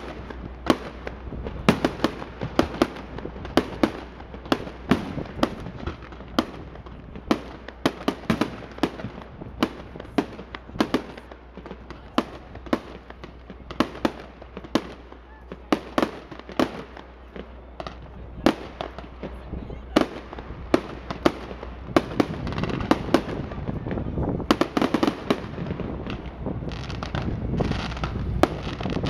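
Aerial firework shells bursting in quick succession, a sharp bang every second or so. The bursts grow denser and louder over the last several seconds.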